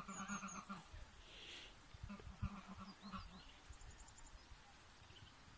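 Faint animal calls, a wavering pitched call that breaks into quick pulses, heard at the start and again about two seconds in. A few short high chirps, like small birds, come between them.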